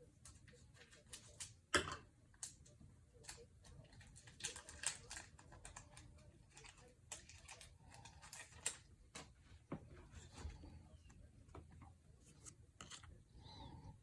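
Faint crinkling and scattered clicks of a Pokémon card booster pack being torn open and its cards handled, with one sharper click about two seconds in.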